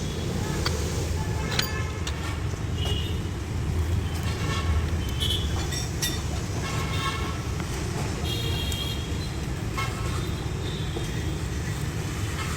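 Road traffic running steadily, with short vehicle horn toots sounding several times.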